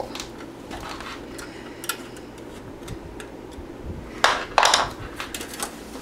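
Small metallic clicks and rattles from a screwdriver driving screws into a steel hard-drive cage as it is handled, with a few loud metal clanks about four seconds in.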